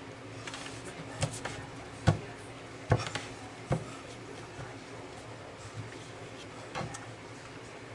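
A handful of sharp knocks and taps of things being handled, the loudest in the first four seconds and a fainter one near the end, over a steady low hum.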